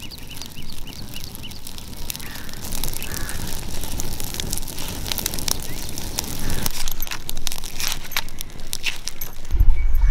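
Dry palm fronds burning with crackling and popping while a plucked chicken is singed over the flames, and a loud low rumble near the end.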